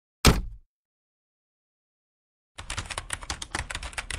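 Title-card sound effects: one sharp hit that fades quickly, then, from about two and a half seconds in, a rapid run of keyboard-typing clicks, about ten a second.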